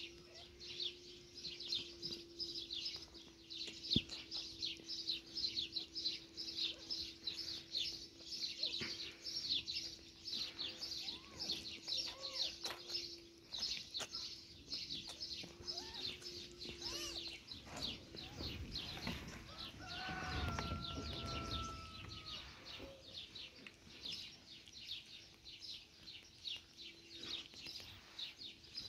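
Small birds chirping rapidly and continuously, many short high chirps a second, over a steady low hum. About two-thirds through, a low rumble swells briefly, and a held, slightly falling tone sounds with it for about two seconds.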